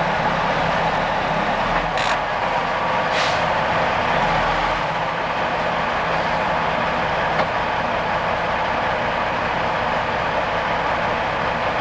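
Dump truck's diesel engine idling steadily, heard from inside the cab, with two brief hisses about two and three seconds in.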